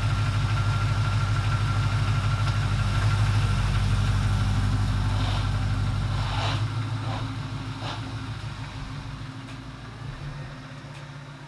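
LS-swapped Chevy Nova's LQ4 V8 idling steadily, growing quieter from a little past halfway.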